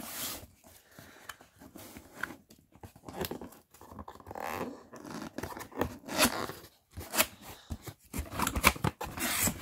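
A cardboard box being handled and opened: irregular scraping and rustling of cardboard, louder near the end.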